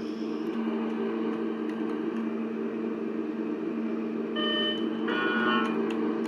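Lift arrival chime sounding over a steady low mechanical hum: a single electronic tone about four and a half seconds in, followed straight after by a brief chime of several notes.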